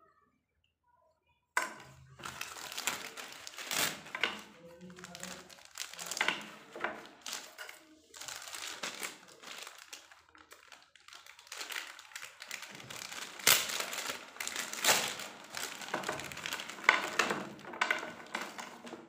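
Clear plastic packaging of hot-glue sticks crinkling and rustling in irregular bursts as it is handled, starting suddenly about a second and a half in.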